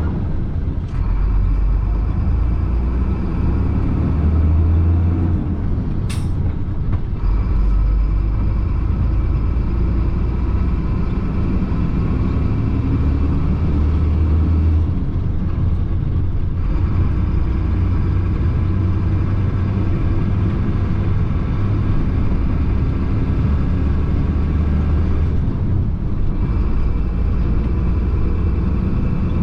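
Chenglong concrete mixer truck's diesel engine running under way, heard from inside the cab: a steady low rumble with engine tones above it that briefly fall away three times. There is one sharp click about six seconds in.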